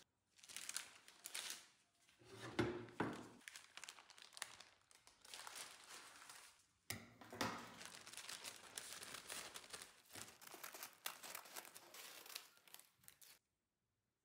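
Baking paper (parchment) crinkling and rustling as it is handled over a baking tray and trimmed with scissors, in irregular stretches of dry crackle with a sudden fresh start about halfway through.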